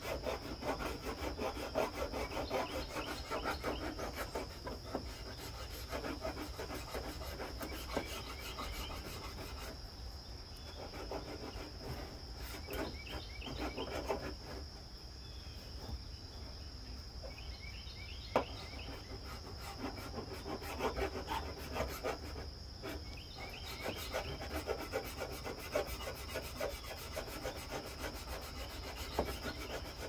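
Metal hand file scraped back and forth against the edge of a car's bumper at the wheel arch, in runs of quick strokes broken by short pauses.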